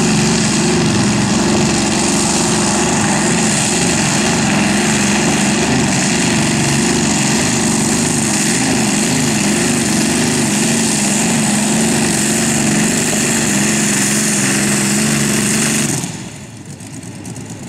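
Modified pulling tractor engine running hard under load as it drags the weight sled, its pitch wavering slightly. About sixteen seconds in the engine sound drops away sharply as the pull ends and the tractor comes off the throttle.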